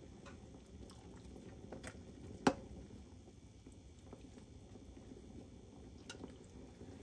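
Soup stirred with a spoon in a glass pot: soft liquid sloshing and a few light clicks, with one sharper knock of the spoon against the pot about two and a half seconds in.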